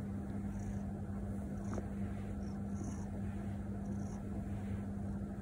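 Orange tabby cat purring quietly while it is stroked, over a steady low hum.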